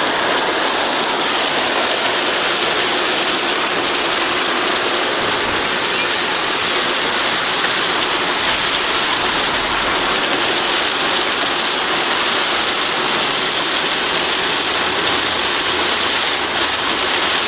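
Steady, heavy rain, an even hiss of falling water with faint scattered drop ticks.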